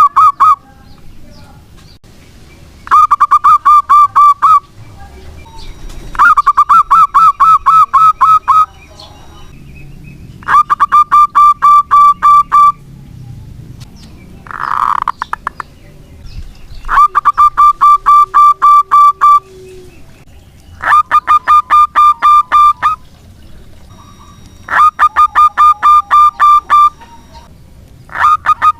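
Zebra dove (perkutut) singing: phrases of rapid, evenly spaced staccato coos, each about two seconds long, repeated every three to four seconds, with one shorter, different call about midway.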